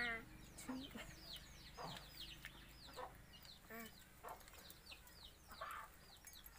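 Chickens faintly in the background: a hen clucking every second or so over a steady string of short, high, falling chick peeps, two or three a second.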